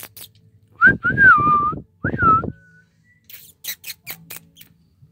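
A puppy whining twice in high, wavering whines. A few short clicks follow near the end.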